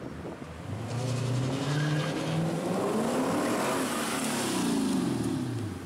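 Lexus IS F's 5.0-litre V8 accelerating toward and past, its exhaust note climbing in pitch, then falling away as the car goes by.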